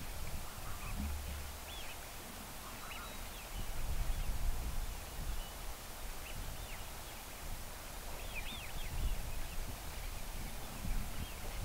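A large mixed flock of wigeon and lapwings in flight, giving many short whistled calls that overlap and come thick and fast. A low rumble of wind on the microphone runs underneath.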